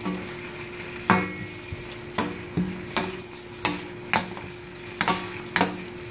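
Chicken and vegetables stir-frying in a wok with a low sizzle. Two wooden spatulas scrape and knock against the pan at irregular intervals, roughly every half second, as the food is tossed.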